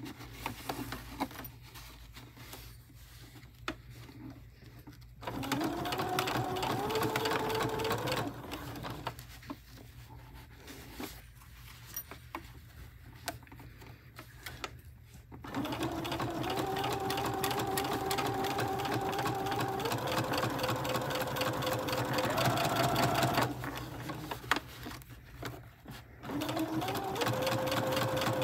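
Electric sewing machine stitching in three separate runs with pauses between. Each run's motor whine steps up in pitch as the machine picks up speed.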